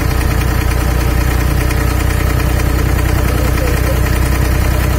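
Diesel engine of an abra, Dubai's wooden water taxi, running steadily with a loud, even low throb, heard close up from on board.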